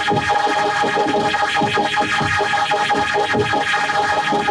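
Heavily effected, distorted electronic music with a steady held high tone over repeated low notes sliding downward.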